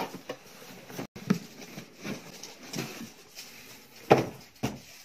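Cardboard being handled: a shoebox slid and lifted out of a corrugated shipping box, with scattered rustles and scrapes and one loud knock about four seconds in.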